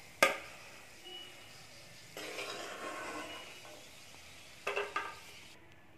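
A steel ladle clinking and scraping against a metal kadai and a plate as fried cashews and raisins are scooped out of ghee. There is one sharp clink just after the start, a soft scraping stretch in the middle, and a few lighter clinks about five seconds in.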